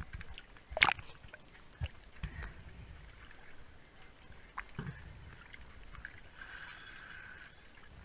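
Water splashing and sloshing at the surface close to the camera as a diver moves alongside a boat hull, with a sharp splash about a second in and a few smaller knocks and clicks after it.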